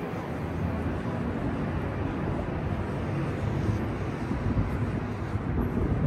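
Steady outdoor city ambience, mostly an even low rumble with no distinct events.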